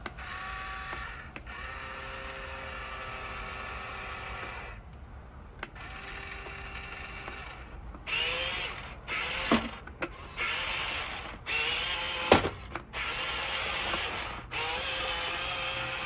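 The electric drive motor and gearbox of a Top Race TR-212 remote-control metal dump truck whine as it is driven in short runs that start and stop. About halfway through the runs get louder and choppier, some rising in pitch as it speeds up, with two sharp knocks.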